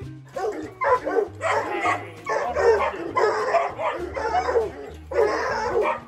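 A dog barking and yelping in three stretches, over background music with a steady bass line.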